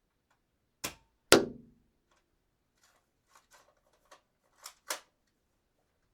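Dart gun firing: a click, then about half a second later a sharp shot with a short ringing tail, the loudest sound. A few faint mechanical clicks follow, then two quick clicks near the end as the gun is cocked again.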